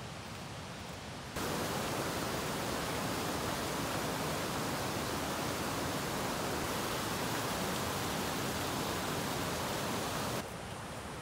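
Mountain stream rushing steadily, a dense even hiss of water that cuts in sharply about a second and a half in and stops just as abruptly near the end.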